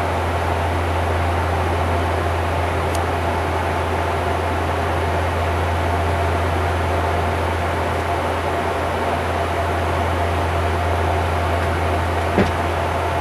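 Steady cruise noise in the cockpit of a Bombardier Q400 (Dash 8-400): a constant low drone from its two turboprop engines and propellers under an even rush of air. A single short click comes near the end.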